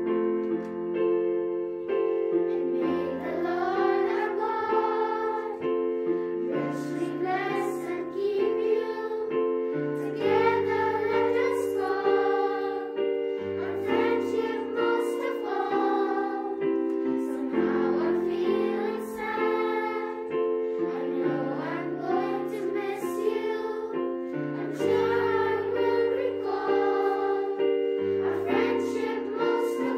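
A choir of young voices singing a song, accompanied by held keyboard chords that change every second or two.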